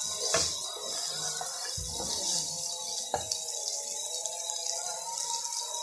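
Egg crumble frying in oil in a frying pan, a steady high sizzle, with a wooden spatula stirring it and knocking against the pan twice.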